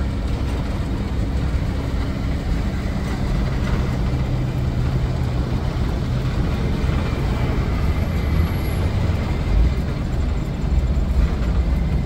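Blue Bird Wanderlodge motorhome under way, heard from the driver's seat in the cab: a steady low engine rumble mixed with road noise.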